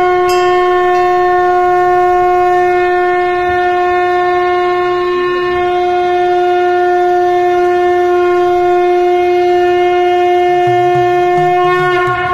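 Conch shell (shankha) blown in one long, steady note.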